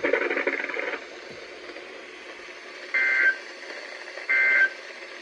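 NOAA Weather Radio heard through a Whistler WS1025 scanner's speaker: a quiet hiss, then three short, loud warbling bursts of SAME digital data tones, each about a third of a second long and a little over a second apart. Bursts this short mark the end-of-message code that closes an alert or test.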